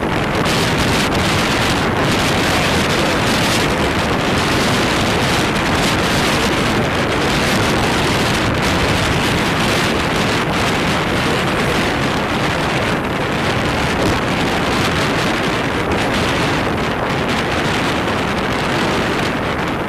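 Steady wind rushing over the microphone of a camera on a moving open vehicle, a dense even noise with road noise mixed in.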